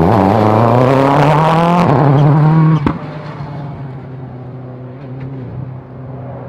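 A WRC rally car's turbocharged engine at high revs, its note rising over about two seconds and then levelling off. Just before the three-second mark it cuts off sharply with a click, giving way to a much quieter, steady engine hum.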